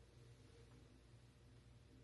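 Near silence: faint steady room hum.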